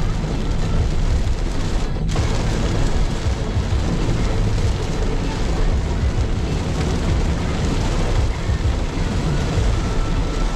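Steady low rumble and hiss of a Mitsubishi Xpander Cross driving along, heard inside the cabin: tyre, road and wind noise with no single event standing out.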